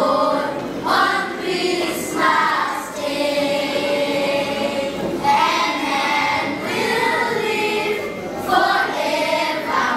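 Children's choir singing a Christmas carol, with long held notes in the middle.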